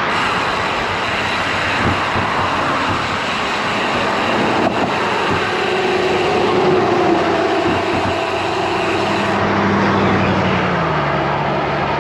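Traffic on a multi-lane highway heard from a moving bicycle, with steady wind noise on the microphone. In the second half a passing vehicle's engine hum grows, and its pitch drops about 11 seconds in as it goes by.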